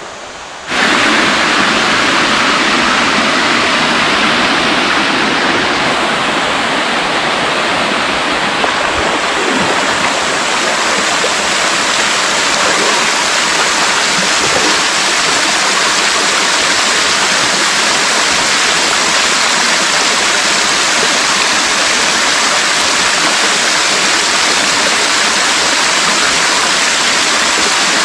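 Steady, loud rush of a mountain stream's flowing water, cutting in abruptly just under a second in.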